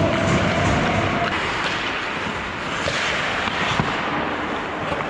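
Ice hockey play: skate blades scraping and carving the ice, with scattered sharp clacks of sticks and puck, and a louder crack about four seconds in.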